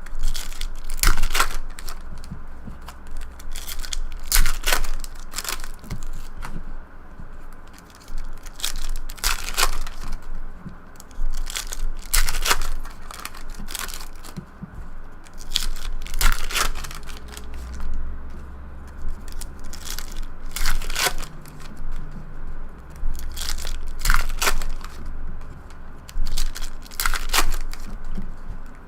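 Trading-card pack wrappers being torn open and crinkled, with cards being handled, in irregular bursts of crackling and rustling.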